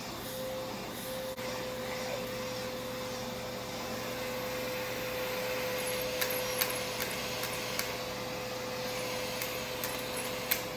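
Pet grooming vacuum running steadily with a constant hum, and a few light clicks in the second half.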